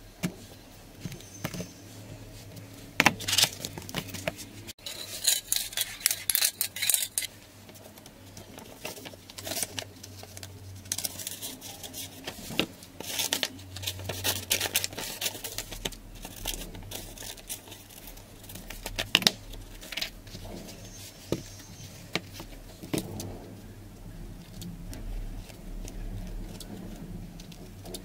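Scissors snipping paper and cardboard being handled on a tabletop: an irregular run of sharp snips, taps and rustles.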